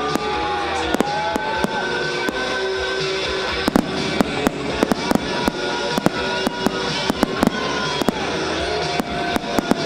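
Aerial fireworks display: a string of sharp bangs and crackles at irregular spacing, sometimes several a second, with gliding whistle-like tones and music underneath.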